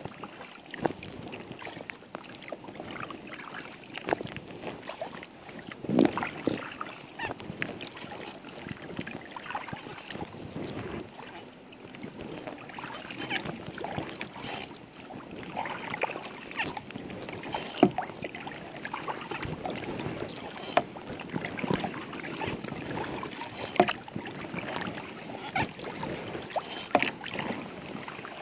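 Kayak paddling: the blades of a double-bladed paddle splash into and out of the water, stroke after stroke, giving a short splash every second or two over a steady wash of moving water.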